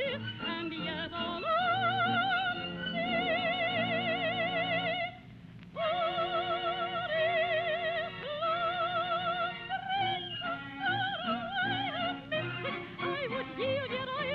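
Gypsy-style operetta music from a radio orchestra. A high melody holds long, strongly wavering notes over steady lower accompaniment, and it breaks off for under a second about five seconds in.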